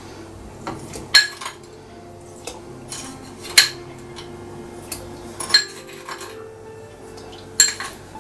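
Metal tablespoon clinking against a glass bowl as spoonfuls of sugar are scooped out: four sharp clinks a couple of seconds apart, with a few lighter taps between.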